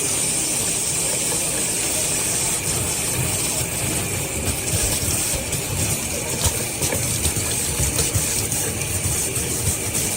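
A steady, loud rushing noise with a low rumble underneath.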